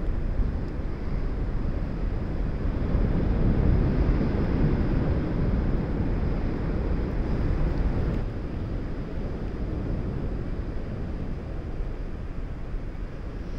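Wind buffeting the microphone, a steady low rumble that swells for a few seconds and eases slightly about eight seconds in.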